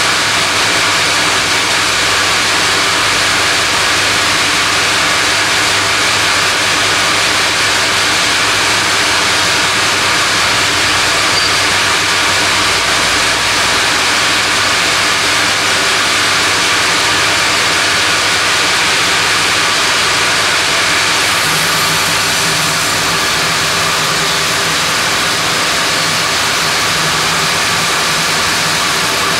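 Large sawmill band saw running, with the log carriage feeding a rain tree (monkey pod) log through the blade. It makes a loud, steady machine noise with a hum, whose tone shifts about two-thirds of the way through.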